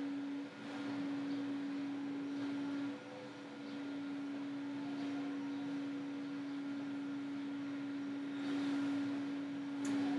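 Steady electrical hum at one low pitch with a fainter overtone, over faint background hiss, with a brief click near the end.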